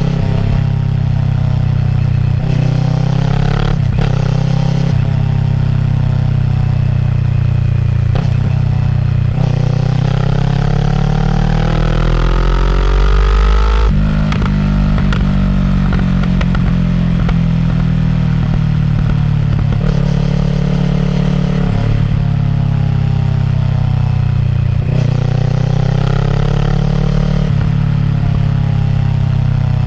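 Kawasaki ER-6f's parallel-twin engine through a Yoshimura full-system exhaust, ridden through the gears: the note climbs with the revs and drops back at each shift, several times over, with one long pull about a third of the way in.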